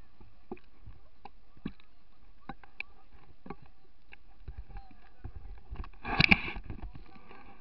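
Wind and handling noise on a hand-held camera carried across a beach: a low rumble with scattered light clicks, and a short, louder rush about six seconds in.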